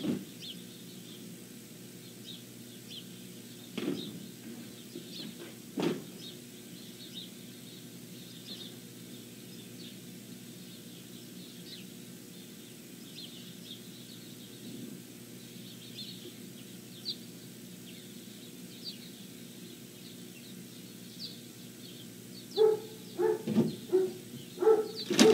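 Faint bird chirps over a steady low hum, with a couple of soft knocks. Near the end a pup vocalizes loudly in a string of short pitched calls.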